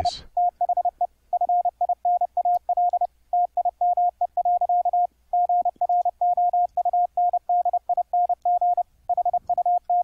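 Computer-generated Morse code (CW) sent at 30 words per minute: a single steady tone near 710 Hz keyed on and off in quick dots and dashes, with short pauses between words. The tone passes through a bandpass filter that is being dialed in to shape the edge (key-click) noise of each element, a subtle difference.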